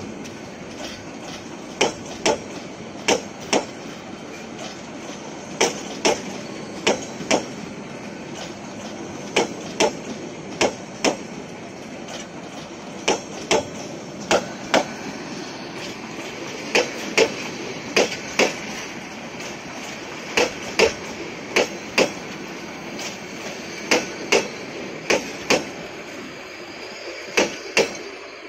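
Bangladesh Railway intercity passenger coaches rolling slowly past close by, their wheels giving sharp paired clacks as each bogie's axles cross a rail joint, over a steady rolling rumble.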